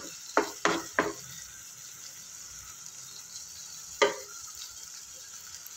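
Chopped onion and tomato frying in oil in a nonstick kadhai with a faint steady sizzle, while a spatula stirs and scrapes through them: four quick strokes in the first second and one more about four seconds in.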